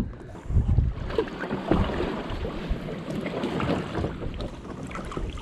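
Kayak paddle dipping and splashing through water, with water pattering off the blade, and wind rumbling on the microphone near the start.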